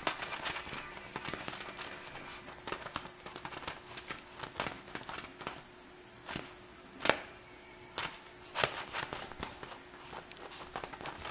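A Persian kitten pouncing and scrabbling on a leather couch while batting at a feather wand toy: irregular soft thumps, scratches and rustles, the loudest about seven seconds in.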